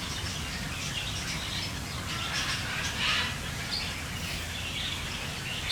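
Small birds chirping and twittering on and off, over a steady low hum.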